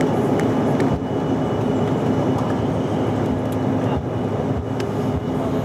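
Cabin noise inside a Bombardier CRJ-900 rolling along the ground: a steady rumble of the wheels on the pavement under the hum of its rear-mounted turbofan engines, with a few low thumps from the wheels.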